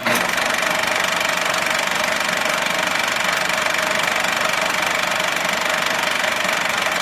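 Steady, even rain noise with no rhythm or break.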